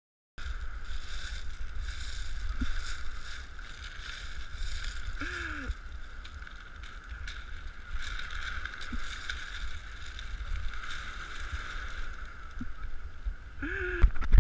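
Wind rumbling on an action camera's microphone over a steady hiss of sea water, with a few faint clicks.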